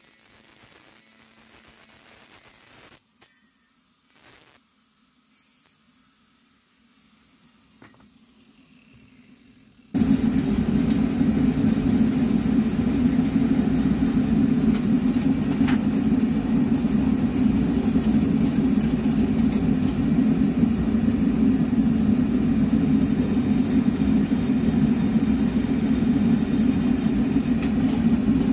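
About ten seconds in, a drill press starts running steadily as it drills a small steel piece. The first part is faint.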